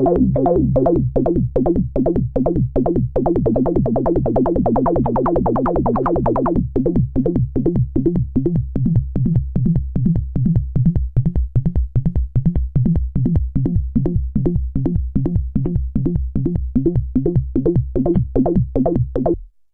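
Moog Rogue two-oscillator analogue monosynth playing a fast step-sequenced bass line of repeating semiquaver notes in a 70s disco style. About six and a half seconds in, the filter is turned down and the notes lose their brightness. The pattern then runs on duller until it stops abruptly just before the end.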